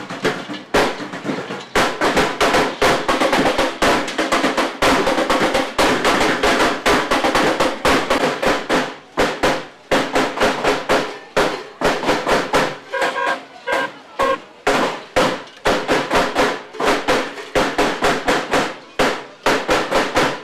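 A dense, uneven run of sharp cracks and bangs, several a second.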